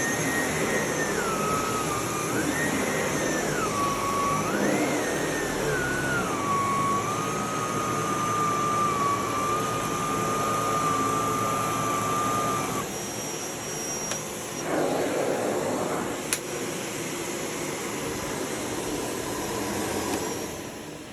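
Sebo D4 canister vacuum cleaner running: its motor whine rises and falls in pitch several times at first, then holds steady. About two-thirds of the way through the whine drops out under the ongoing noise, a sharp click follows a few seconds later, and near the end the sound starts to die away.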